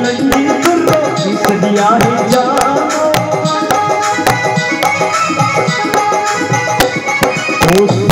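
Live Indian folk music: a dholak hand drum beats a quick, steady rhythm under a sustained melody.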